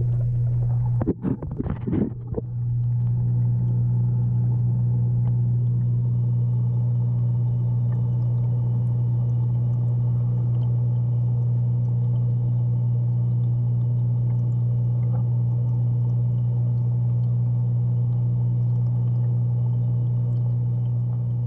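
Steady electric hum of an aquarium pump, an even low buzz, with a few brief knocks about a second in.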